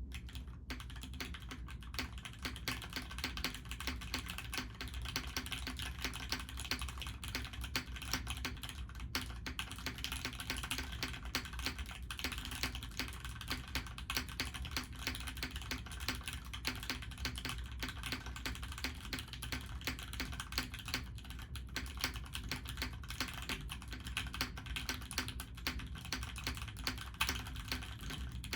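Continuous typing on a JJW Derivative R1 mechanical keyboard: Cherry Nixie linear switches in an aluminium plate, top-mounted, under GMK keycaps, giving a dense, steady stream of key clacks.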